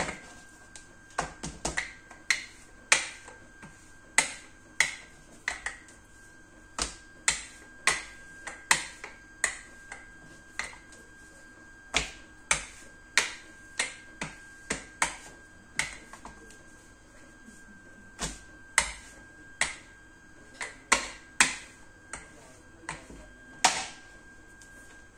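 Plastic rolling pin knocking and clicking against a plastic cutting board as samosa dough is rolled out: sharp clicks at an uneven pace, about one or two a second, with a short pause partway through.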